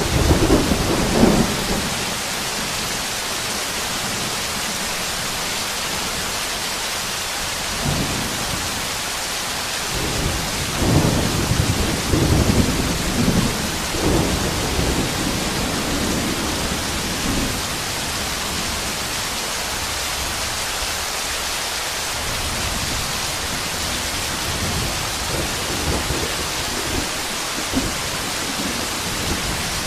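Heavy rain pouring steadily, with thunder rumbling at the start and again for several seconds around the middle.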